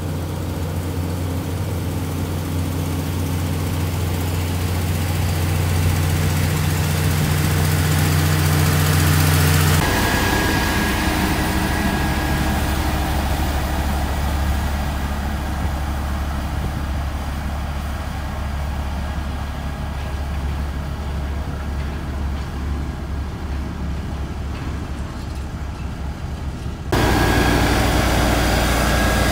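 Heavy diesel road-building machinery running steadily. For the first ten seconds or so it is a motor grader's engine. It then changes abruptly to the lower hum of single-drum road rollers on gravel, with another sudden change near the end.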